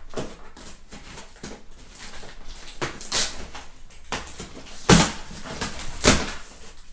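A large cardboard box being opened by hand: tape peeled from the top and the flaps pulled open, a run of scratchy rips and cardboard rustles, with louder rips about five and six seconds in.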